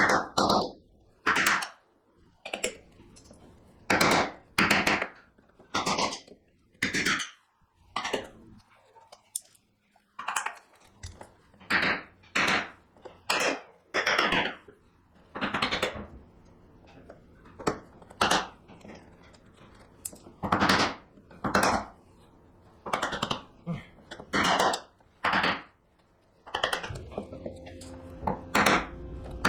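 Hand chiselling in walnut: a series of sharp knocks, irregular but about one a second, as the chisel is driven to clear waste from a dovetail's tail board.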